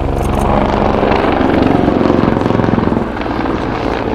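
Mil Mi-24V Hind attack helicopter flying past, with its twin turboshaft engines running and main-rotor blade slap. It grows louder to a peak in the middle and eases off after about three seconds.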